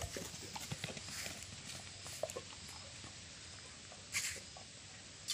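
Faint soft taps and scuffs of a dog's paws running and scrabbling on grass and mud, with a brief hiss about four seconds in.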